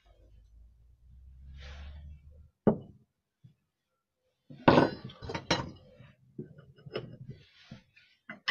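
Rustling handling noise, then one sharp knock and a run of sharp clinks and knocks from about halfway in, as a container is worked close by to catch a house spider.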